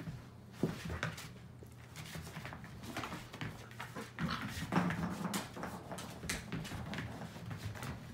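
Two Old Family Red Nose pit bulls play-fighting on a carpet: irregular scuffles and thumps of paws and bodies mixed with dog vocal sounds. The sounds grow busiest and loudest around the middle.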